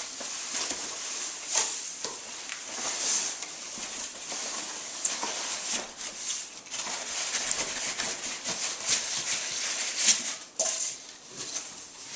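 A cardboard shipping box and its polystyrene foam packing being handled as the foam block is worked out of the box: continuous rustling and scraping with many sharp crackles.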